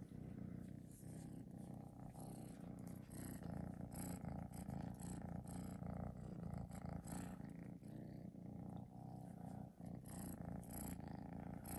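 A young kitten purring steadily, right up against the microphone.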